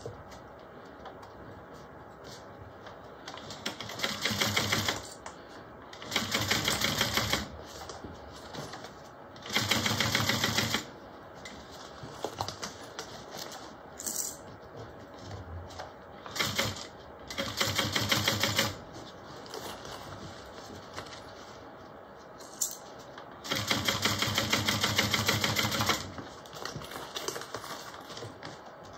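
Juki industrial sewing machine stitching canvas binding onto a bag seam, running in six short bursts of rapid, even stitching with pauses between them while the bag is turned along the seam.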